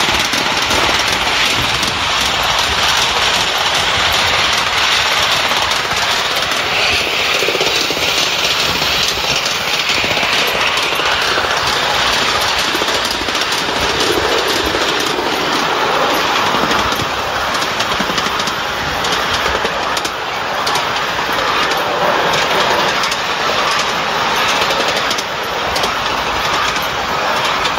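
A 5-inch gauge live-steam locomotive running along the track, heard from aboard: a steady, loud running noise with fine clicking of wheels on the rails.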